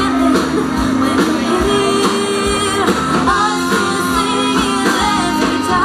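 A woman singing a pop-rock song into a handheld microphone over amplified music with guitar and a steady drum beat.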